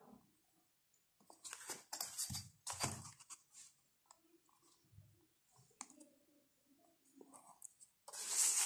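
Paper and ruler handling: a notebook being shifted on the desk and a steel ruler moved and set against the page, in short rustling, scraping bursts with small clicks, the loudest near the end.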